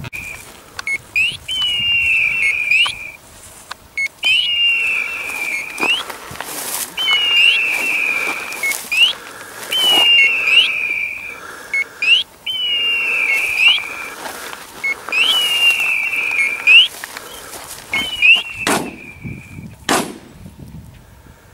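Electronic hawk-scream call from a hunting dog's beeper collar, repeated about every three seconds: each call is a quick upward chirp that slides down into a long held tone, the signal that the setter is on point. Near the end the calls stop and there are two sharp bangs about a second apart.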